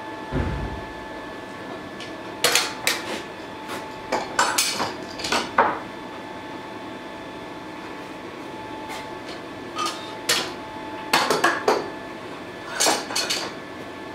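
Steel bar clamps clanking and knocking against a steel bar on a metal workbench as they are set in place, in irregular clusters of sharp metallic knocks. A dull thump near the start, and a steady workshop hum throughout.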